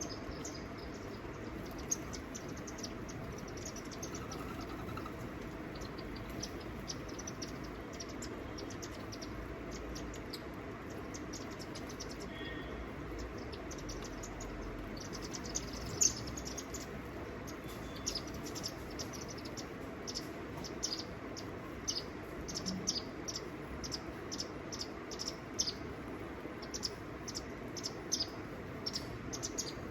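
Small birds chirping: many short, high notes that come thicker and faster in the second half, over a steady background hiss.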